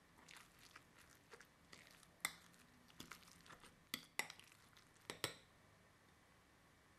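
A metal fork stirring minced pork and onion in a glass bowl: faint soft scraping with a few sharp clinks of the fork against the glass, the last ones close together, then the stirring stops about three-quarters of the way through.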